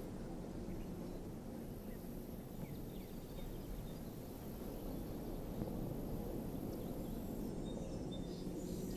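Steady, low outdoor background noise with a few faint bird chirps about two to three seconds in.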